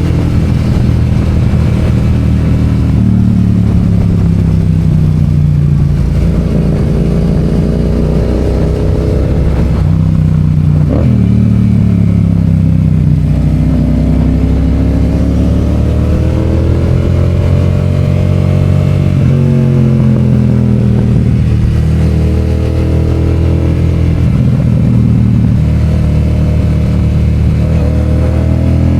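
Yamaha FZ-07's 689 cc parallel-twin engine running under riding load, its pitch climbing and falling as the bike accelerates and eases off. About 11 seconds in there is a sharp click and a drop in pitch, then the note climbs again.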